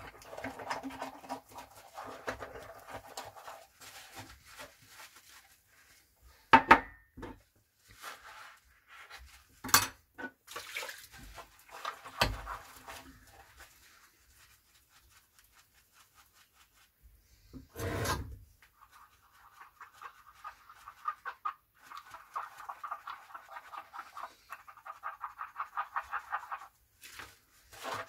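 Sponge scrubbing cups and a glass in a sink, in quick repeated rubbing strokes, with a few sharp knocks as the dishes are handled.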